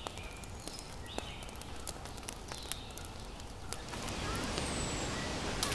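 Small campfire crackling with sparse snaps, and a few short high bird chirps. About four seconds in, a steady hiss of background noise rises under them.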